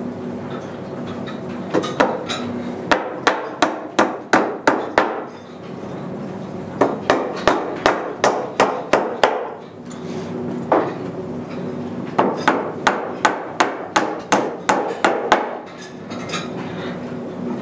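Hammer blows in three runs of about eight to ten strikes each, roughly three a second, with short pauses between the runs.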